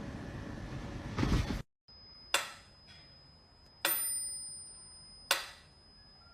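Steady background noise that cuts off suddenly, then three sharp dings about a second and a half apart, each with a high ringing tail.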